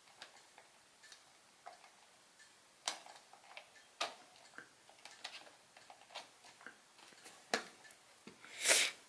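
Scattered faint clicks and ticks at an uneven pace, with a louder short rush of noise near the end.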